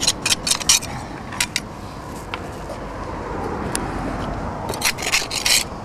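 Scratchy scrapes and rustles of weeds being torn and scraped out of the cracks in a concrete paving ledge, in short clusters near the start and again about five seconds in. A car passes in the middle.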